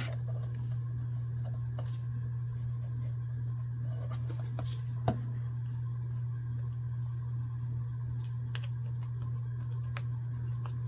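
Soft rustling and light ticks of fingers folding and pressing a small paper envelope, over a steady low hum. One sharp click about five seconds in.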